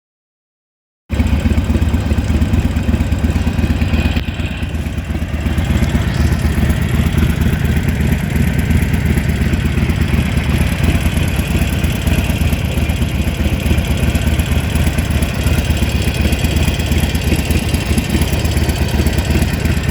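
Harley-Davidson Sportster 883's air-cooled V-twin engine idling steadily after starting about a second in, carrying the 'clec-clec' engine noise that the owner says is a characteristic of some of these engines, not a fault.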